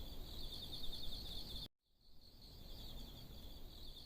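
Nature ambience of a steady insect chorus, a fast, even trill, over a low rumble. It cuts out suddenly about one and a half seconds in, then fades back in after a brief gap.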